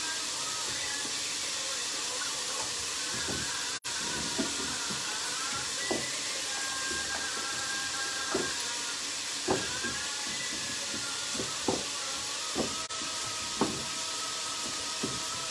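Onions frying in olive oil in a pot, giving a steady sizzling hiss. Irregular sharp knocks of a knife and carrots on a wooden cutting board sound over it.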